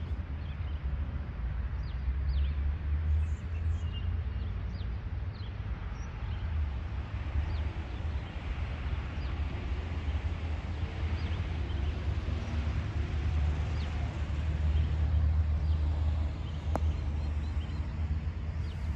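Outdoor ambience: a steady, fluctuating low rumble with scattered short bird chirps above it, and one sharp click about seventeen seconds in.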